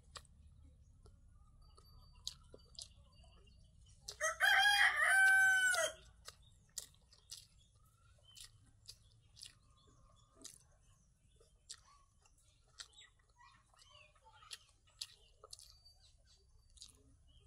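A rooster crows once, about four seconds in, a loud call of nearly two seconds ending on a held, slightly falling note. Around it, faint short clicks of someone eating with her fingers and chewing.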